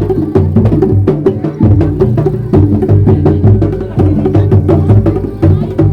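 Traditional Sundanese percussion music of the kind played for a kuda lumping dance: rapid, steady drum strokes over pitched tones.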